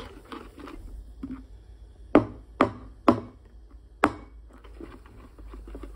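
Stainless steel milk pitcher knocked on the countertop: three sharp knocks about half a second apart, then a fourth about a second later.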